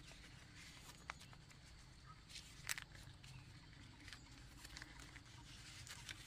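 Near silence, broken by faint crackles of paper banknotes being handled and counted. The sharpest crackle comes about two and a half seconds in.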